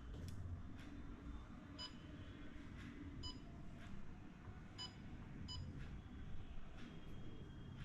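Philips air fryer's control panel giving four short electronic beeps as its buttons are pressed to switch it on and set the cooking time.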